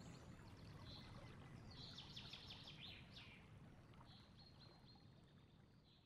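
Faint outdoor ambience with small birds chirping: short high calls, a quick trill about two seconds in, and more chirps later, over a low background hush that gradually fades out.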